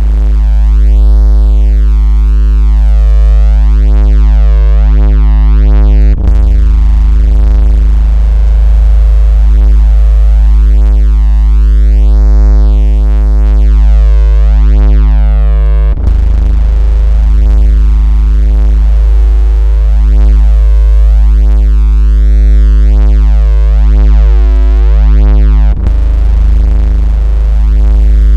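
Loud, steady synthesized 56 Hz bass tone with a stack of slowly swelling overtones above it. This is the kind of vibration tone played to make a phone buzz or push water out of its speaker. It breaks with a brief click about 6, 16 and 26 seconds in, roughly every ten seconds.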